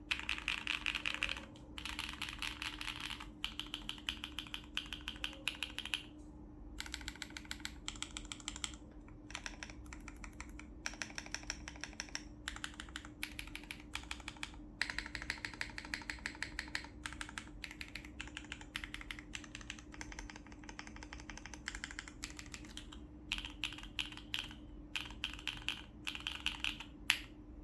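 Typing on a KBDfans Tofu60 Redux acrylic mechanical keyboard with Gateron Summertime switches, carbon fibre plate and KeyKobo keycaps: quick runs of key clacks in bursts with short pauses, one louder key stroke near the end. A faint steady hum sits underneath.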